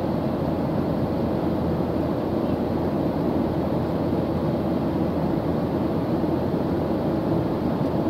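Jet airliner cabin noise in cruise: a steady low drone of engine and rushing air heard from inside the cabin, with a faint constant hum under it and no change in level.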